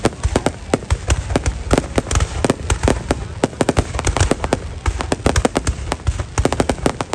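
Fireworks display: a dense, rapid barrage of sharp bangs and crackles, several a second, over a low rumble.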